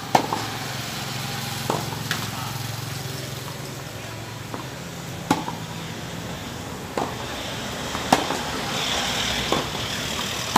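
Tennis balls struck by rackets and bouncing on a hard court during a rally: a sharp pop every one to three seconds. Under it a low motor hum fades out about halfway through.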